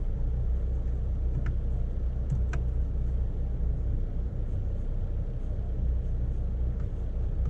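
Fiat Mobi's engine idling, a steady low rumble heard from inside the cabin, with a couple of faint clicks about one and a half and two and a half seconds in.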